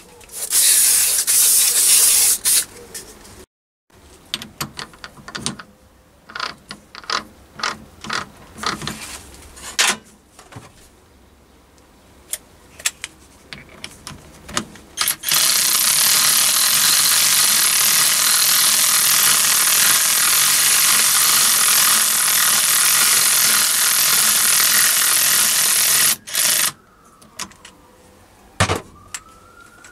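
A short hissing burst of aerosol oil sprayed onto a lathe's four-jaw chuck, then scattered clicks and knocks. Then an 18 V cordless 3/8-inch right-angle ratchet wrench runs steadily for about ten seconds, power-driving the chuck key to move the chuck jaws, and cuts off sharply.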